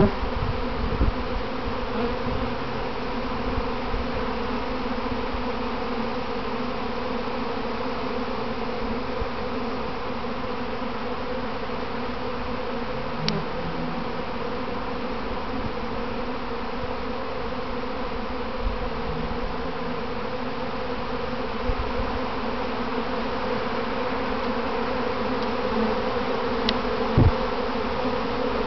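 A honeybee swarm in the air: the steady, even-pitched hum of many bees' wings all around. A couple of soft bumps break in, the loudest near the end.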